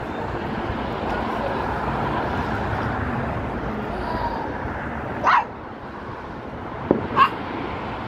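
A dog barks sharply two or three times in the second half, over a steady background hum of outdoor noise.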